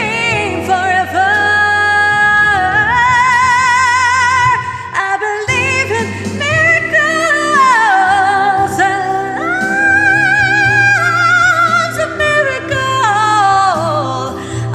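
A woman singing a soulful ballad, holding long notes with wide vibrato and sliding down in melismatic runs, over steady backing accompaniment; the voice breaks off briefly about five seconds in.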